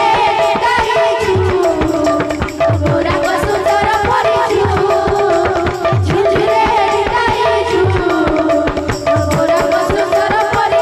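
Odia devotional kirtan: a woman's lead voice singing the melody over a two-headed barrel drum (mridanga/khol) playing a steady repeating pattern, with bright, rapid clashing percussion that sounds like small hand cymbals.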